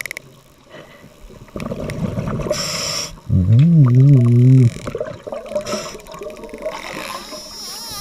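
A diver breathing underwater through a regulator: a short hissing inhalation, then an exhalation with a wavering, low pitched warble, about once every five seconds.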